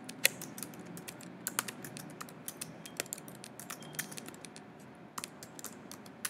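Typing on a computer keyboard: a run of irregular key clicks with short gaps between words, one sharper click about a quarter of a second in.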